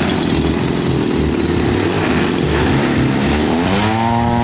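Radio-controlled aerobatic model airplane's engine running as it taxis on the grass, its pitch rising sharply near the end as the throttle is opened for takeoff.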